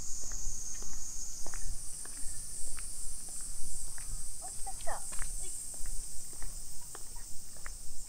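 A steady high-pitched chorus of summer cicadas, with footsteps on a brick path ticking along irregularly beneath it. A short chirp comes about five seconds in.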